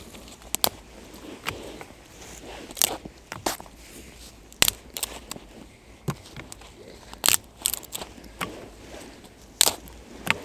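Dry twigs snapped by hand as kindling for a campfire: a series of sharp, irregular cracks, roughly a dozen.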